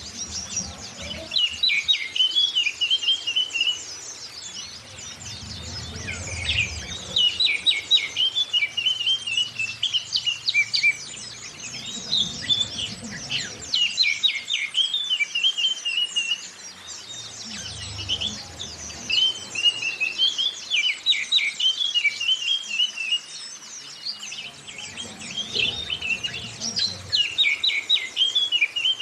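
Oriental magpie-robin (kacer) and white-eye (Zosterops) song: repeated phrases of quick, chattering notes every few seconds. A soft low rumble sits under some of the phrases.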